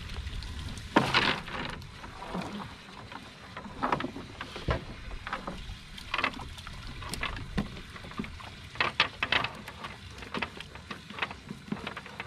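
Cast net full of small live baitfish lifted from the water and emptied into a bucket: irregular splashes and patters of water streaming off the mesh, the loudest about a second in and another cluster near the end.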